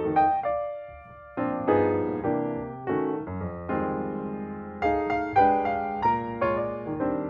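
Background music: a piano tune of struck notes and chords.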